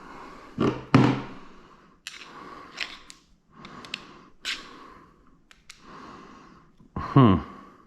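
Short scraping and clicking noises of hands working on a bare engine, with a heavy sigh-like breath falling in pitch near the end.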